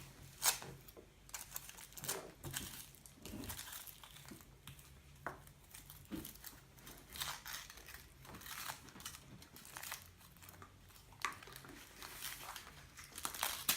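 Foil wrapper of a chocolate surprise egg crinkling and tearing in irregular crackles as it is unwrapped by hand.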